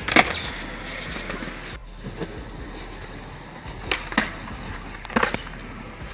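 Skateboard wheels rolling on concrete with sharp clacks of the board hitting the ground: a loud one just after the start and a few more about four and five seconds in.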